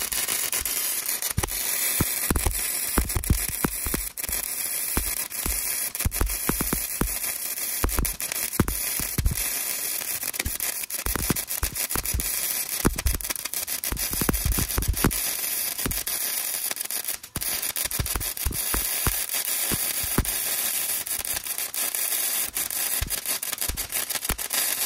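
Wire-feed arc welder laying a bead on a steel truck bumper: a steady crackling hiss with many irregular sharp pops, breaking off briefly about two-thirds through.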